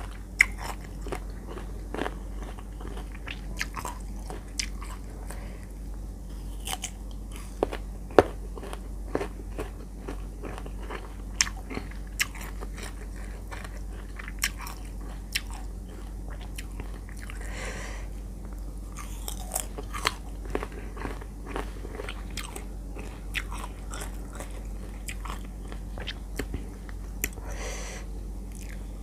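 Close-miked crisp crunching bites and chewing of firm unripe green mango slices, sharp crunches at irregular intervals.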